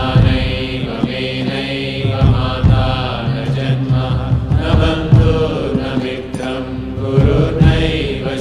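Sanskrit devotional chant sung to music: a voice singing over a sustained low drone and instrumental accompaniment.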